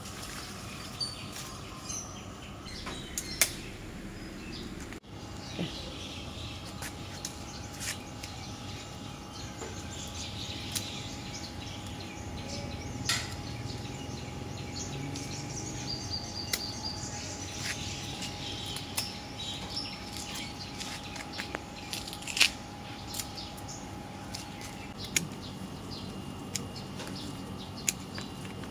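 Hand pruning shears snipping plant stems, heard as sharp clicks every few seconds, some much louder than others, over a steady outdoor background with a faint steady tone through the middle.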